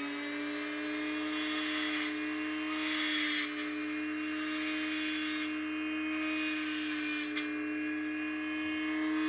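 Dremel rotary tool running steadily at high speed with a small grinding disc, touched to the end of a piston ring four times in short bursts of grinding. The metal is being ground away to open up a ring end gap that is too tight.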